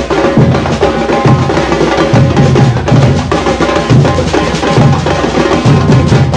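Music with drums and percussion, a bass drum beating through it.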